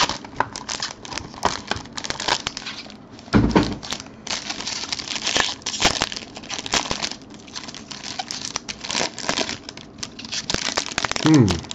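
Foil trading-card pack wrapper crinkling and tearing as it is ripped open by hand, in dense irregular crackles. A short low thump comes about three and a half seconds in, and a brief falling hum of a voice near the end.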